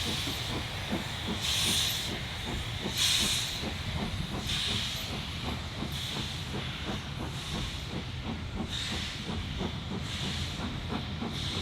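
LMS Stanier Black 5 steam locomotive working slowly with its train: repeated hissing bursts of steam about every second and a half over a steady low rumble.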